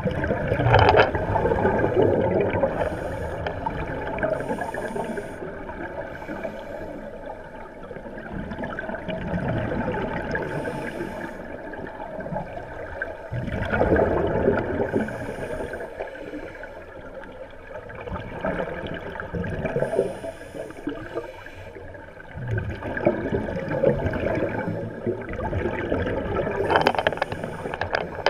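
Scuba breathing heard underwater: a regulator's exhaled bubbles rushing and gurgling, swelling in surges every several seconds with quieter stretches between.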